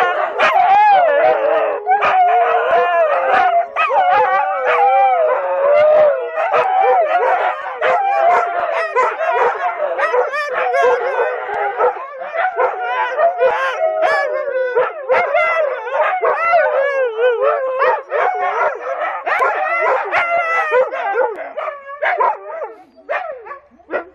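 Several Siberian huskies howling together in overlapping, wavering voices, their morning 'singing', dying away near the end.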